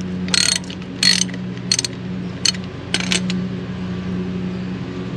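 Hand socket ratchet clicking in about five short bursts as it turns a brake caliper bolt. A steady low hum runs underneath.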